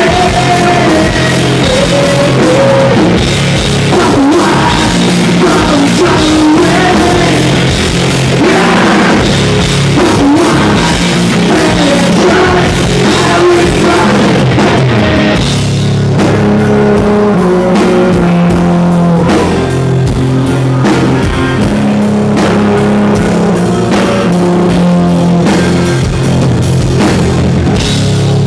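Live hard rock band playing at full volume: bass, distorted electric guitar and drum kit, with a singer's vocal over them. Recorded close to the stage, loud and distorted.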